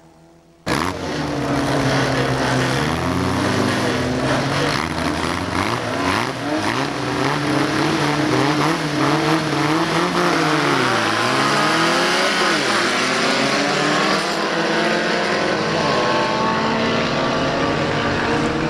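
Several bilcross cars' engines revving hard together, their pitches rising and falling and overlapping, after a brief quiet moment at the start.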